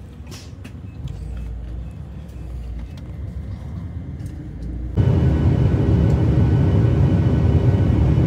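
Low engine rumble of an idling airport limousine bus. About five seconds in, an abrupt cut to the much louder, steady drone of an airliner cabin, with a faint steady hum on top.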